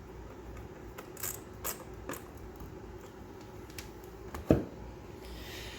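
Small metallic clicks and taps of wire terminals and hand tools being worked at a bilge pump wiring terminal block, with one sharper knock about four and a half seconds in.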